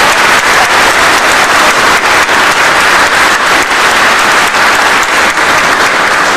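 A crowd applauding: many hands clapping in a dense, loud, steady patter.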